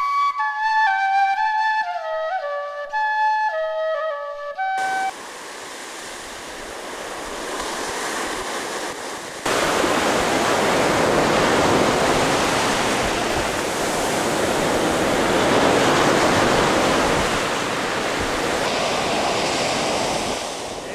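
A simple flute melody of clear single notes stops abruptly about five seconds in, giving way to ocean surf washing and foaming over sand. The surf grows louder about halfway through.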